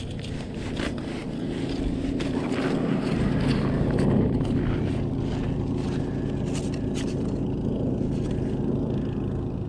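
A motor vehicle's engine running steadily on the ice, growing louder over the first three or four seconds and then holding, with a few short clicks and rustles close by.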